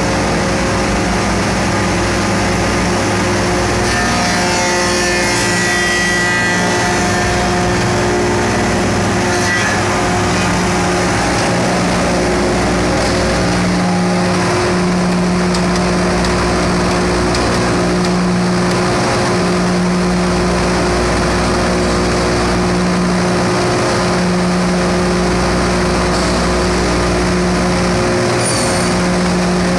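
SAC F60 window-making machine running steadily, with a constant drone and several steady tones from its spinning motors and cutters. From about twelve seconds in, a low hum swells and drops every second or so.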